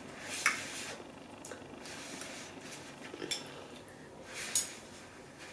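Udon noodles being slurped from chopsticks in several short, airy pulls, the loudest near the end, with soft clinks of chopsticks and bowls.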